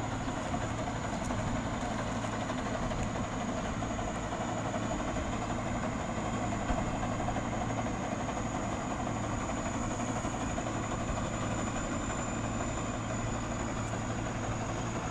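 Thai Seng Chao Phayu Thornong combine harvester running steadily while harvesting rice, a continuous engine and machinery drone with a thin, steady high whine over it.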